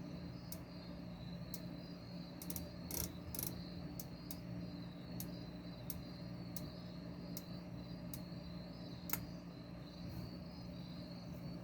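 Light clicks about twice a second, somewhat uneven, from the washer's control knob being turned through its detents to enter manual test mode, over a faint steady hum.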